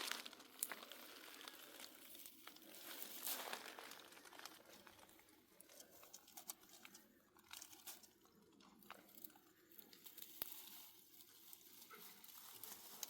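Faint rustling and crinkling with scattered light clicks and taps, as of something being handled.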